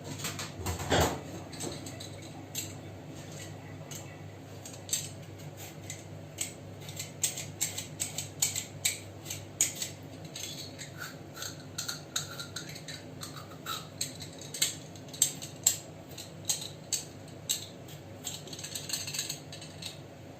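Paring knife peeling a raw potato by hand: many short, irregular scraping and clicking strokes of the blade against the potato, over a faint steady low hum.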